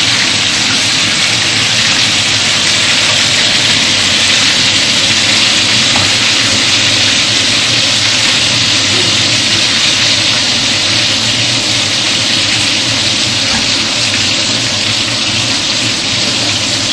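Battered zucchini flowers frying in olive oil in a pan, a steady sizzle.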